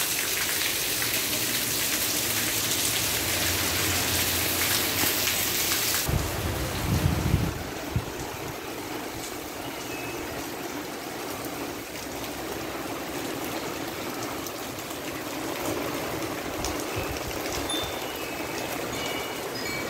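Heavy rain, with water pouring close by over the edge of an overflowing roof gutter as a loud hiss that drops off suddenly about six seconds in. A softer, steady rain hiss follows, broken by a brief low rumble about seven seconds in.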